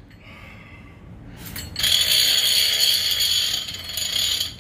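Green Avet conventional fishing reel ratcheting as it is worked by hand. A fast, steady, high-pitched clicking buzz starts a little under two seconds in and stops near the end.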